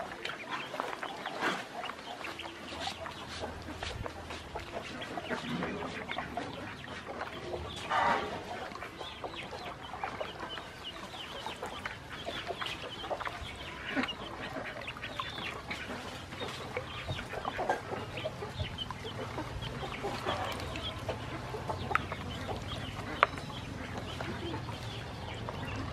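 Ducklings peeping continuously: many short, high chirps overlapping, with a few louder calls now and then.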